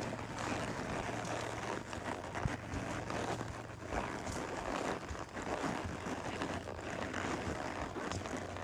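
A horse's hooves striking a dirt trail, irregular knocks heard over a steady low wind rumble on the microphone.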